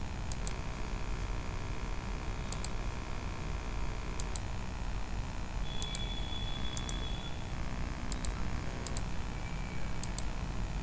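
Computer mouse clicking: about seven clicks, each a quick press-and-release pair, spread a second or two apart over a low steady hum.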